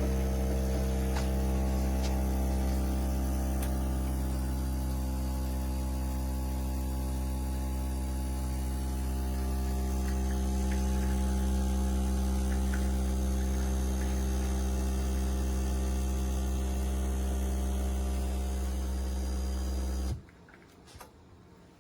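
Nesskoko espresso machine running with a steady, loud electric hum, its pump working, that cuts off suddenly near the end as the machine stops.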